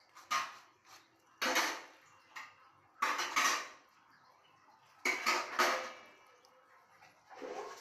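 Kitchen knife scraping the black lining off goat tripe on a plastic cutting board: four rasping strokes, about a second and a half apart, each about half a second long, with a fainter stroke near the end.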